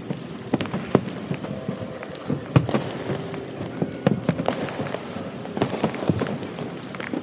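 Aerial fireworks shells bursting in an irregular rapid string of booms and crackling pops, the loudest about two and a half seconds in.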